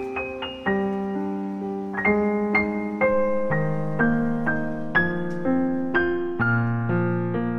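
Background music: slow solo piano, single notes and chords struck about twice a second, each ringing and decaying.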